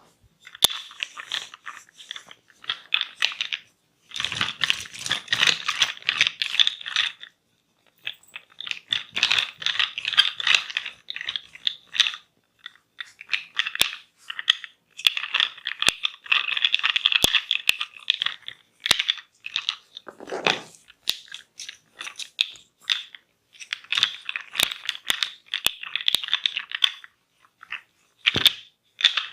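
Close-miked crackling and scratching of fingers or tools working against hair and skin, coming in bursts of a few seconds with sharp clicks between them.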